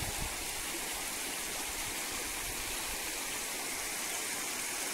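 Shallow river flowing and rippling over stones: a steady rushing hiss of running water.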